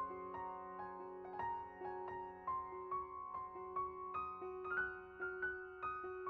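Gentle background piano music, notes struck at an even, unhurried pace over a sustained lower note.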